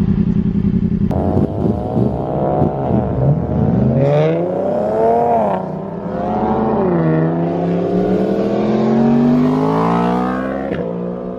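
Car engines revving at a car meet: after a steady idle, the pitch rises and falls in several overlapping revs, with a longer climbing rev near the end.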